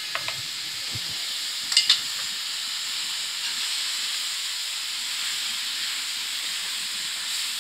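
Chopped fenugreek (methi) leaves sizzling with a steady hiss in a steel pan as they are sautéed and stirred, with two sharp clinks of the metal spatula against the pan about two seconds in.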